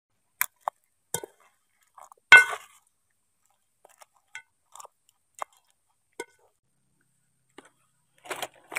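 Scattered short clicks and knocks of cookware and utensils, with one loud ringing metallic clink a little over two seconds in and a quick cluster of knocks near the end.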